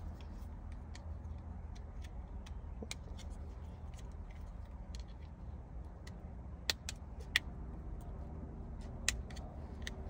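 Small sharp clicks and taps of a screwdriver and plastic parts as the key illumination ring is pried off a new Kia Soul ignition lock assembly, the loudest few clicks coming about two-thirds of the way in, over a steady low hum.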